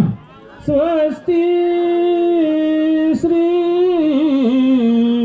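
A single voice singing a Marathi wedding verse (mangalashtak) in long, held notes that waver and slide down at the ends, with a short break for breath just after the start and another about three seconds in.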